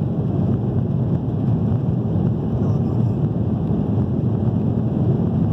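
Airliner cabin noise during take-off: the jet engines at full thrust ('al palo') with a steady, loud low rumble.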